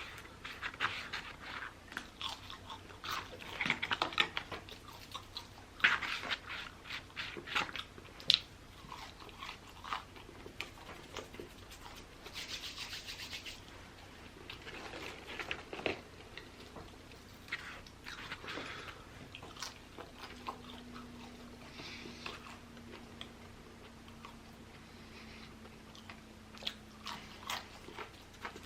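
Close-up chewing and crunching of fast-food fries, with many short wet clicks and smacks of the mouth. The eating is busiest and loudest in the first several seconds, then comes in sparser bites.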